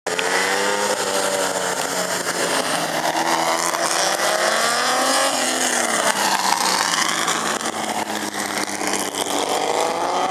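A string of historic front-engined racing cars driving past one after another on a warm-up lap. Several engines run together, their notes rising and falling as each car passes.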